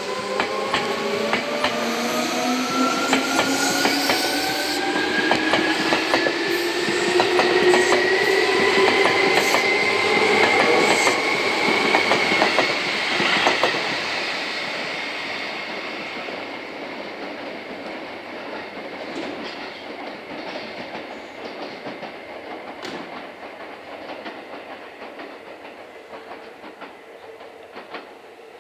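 Seibu 2000-series electric train accelerating away from a station. The traction motors whine, rising steadily in pitch for about twelve seconds, over a clatter of wheels on the rail joints. About thirteen seconds in the whine stops, and the rumble and clatter fade as the train recedes.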